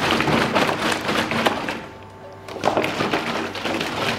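Water sloshing inside a large plastic drinking-water bottle shaken by hand, in two bouts with a short pause about halfway through.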